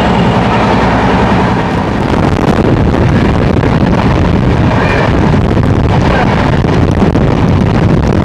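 Passenger train running at speed, heard from inside the coach: a steady, loud rumble of the wheels on the track with wind rushing in at an open window, a little louder after about two seconds.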